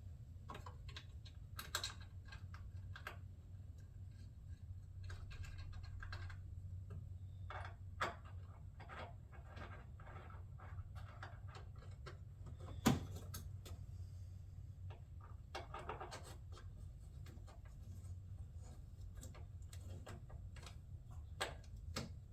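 Faint, scattered clicks and scrapes of small hardware, washers and screws, being handled and fitted into a shroud, with a sharper click about eight seconds in and a louder one about thirteen seconds in, over a steady low hum.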